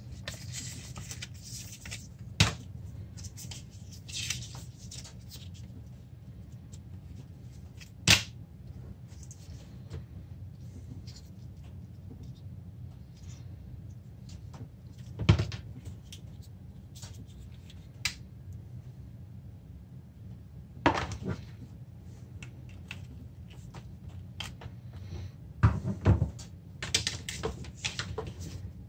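Unboxing handling noises: rustling and scraping of cardboard packaging and a card booklet, with several sharp knocks as pieces are set down on the table, over a steady low hum.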